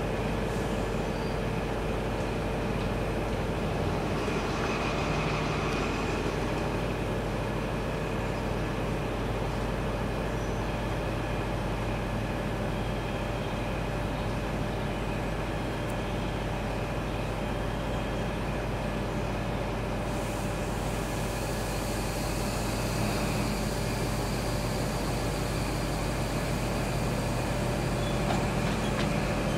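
East Midlands Trains diesel passenger train standing at a platform with its engines idling: a steady hum with held whining tones. About twenty seconds in a hiss joins, and the engine sound grows a little louder towards the end.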